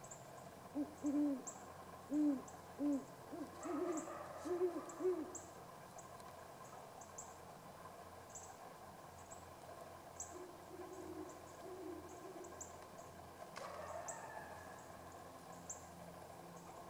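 Great horned owl hooting: a run of about eight deep hoots in the first five seconds, then a fainter run of hoots later.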